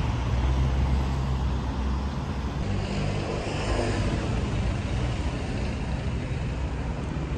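Road traffic going by: a steady low rumble of cars, with one vehicle passing a little after three seconds in.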